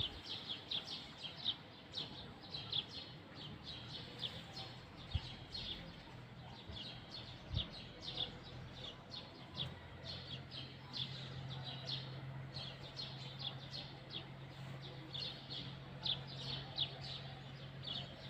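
Small birds chirping constantly, many short high chirps overlapping throughout. A low steady hum comes in about halfway through.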